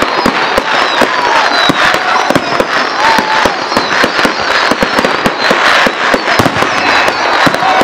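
Fireworks display: aerial shells bursting overhead in a dense, continuous run of bangs and crackles.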